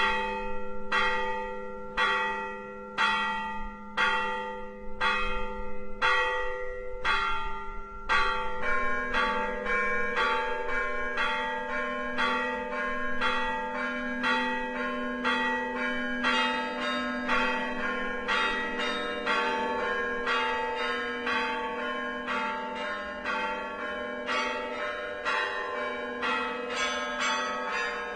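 Church bells ringing: one bell struck about once a second, then from about eight seconds in several bells of different pitches join in a fast, dense peal.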